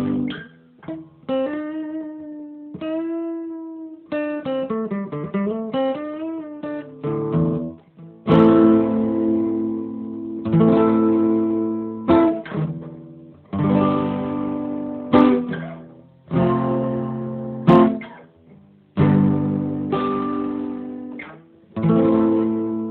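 Solo guitar playing: picked single notes with string bends for the first several seconds, then strummed chords, each left to ring and die away, about one every two to three seconds.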